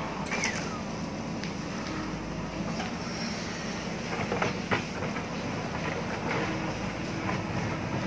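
JCB backhoe loader's diesel engine running steadily under load while the backhoe bucket digs into soil and stones, with a few sharp knocks of bucket on rock, two of them close together about four and a half seconds in.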